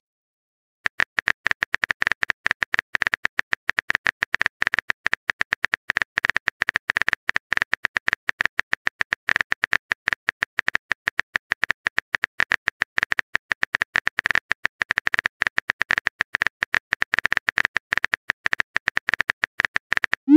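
Typing sound effect of a texting app: a quick, uneven run of keyboard-tap clicks starting about a second in, with short silences between taps.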